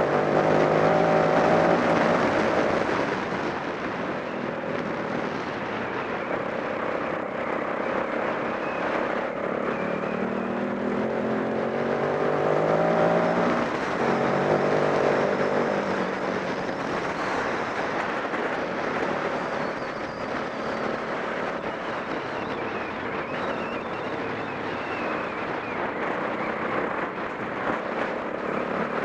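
Off-road motorcycle engine running as the bike is ridden, its pitch rising as it accelerates near the start and again about halfway through, then easing back to a steadier note.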